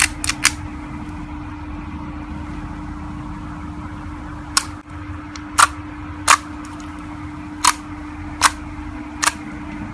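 Slime being handled, giving sharp popping clicks at irregular intervals: a couple near the start, then several more from about halfway through. A steady low hum runs underneath.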